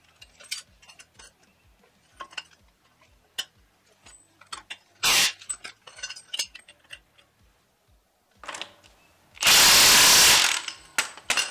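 Ratchet clicking on a differential's pinion yoke nut, with a short clatter about halfway, then a cordless impact wrench firing one burst of about a second near the end. The impact is tightening the pinion nut to crush the crush sleeve, in short hits so as not to over-torque it.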